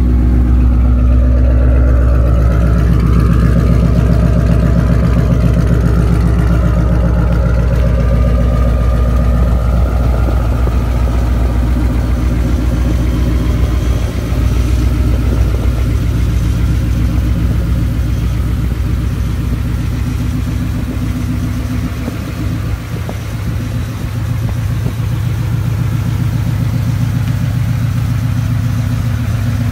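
2007 Saleen Parnelli Jones Mustang's V8 engine idling steadily.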